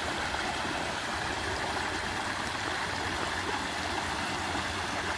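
Shallow stream running over rocks, a steady rushing and babbling of water.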